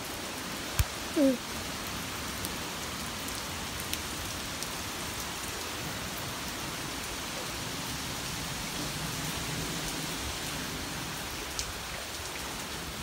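Steady hurricane rain and wind making a broad, even hiss. About a second in there is a sharp tap, then a short sound that falls in pitch.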